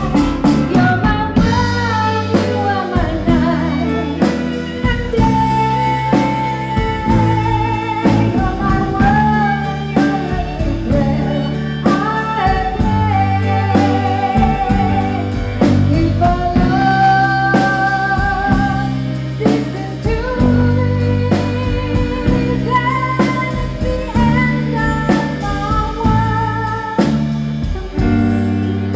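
Live band with a woman singing lead into a microphone, with vibrato on her held notes, backed by two violins, acoustic guitar and a drum kit.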